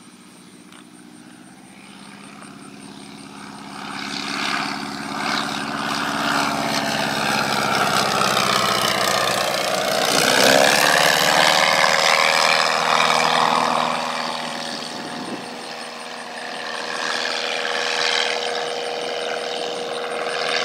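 Savage Outback light-sport plane's 180 hp Titan four-cylinder fuel-injected engine and propeller in a low flyby: the drone builds steadily, peaks about halfway through with a drop in pitch as the plane passes overhead, then fades, swelling once more near the end.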